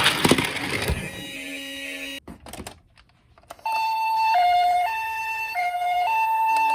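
A loud rattling noise with a few clacks stops about a second in, followed by a few faint clicks. Then a toy ambulance's electronic two-tone siren starts, alternating between a high and a low note about every half second.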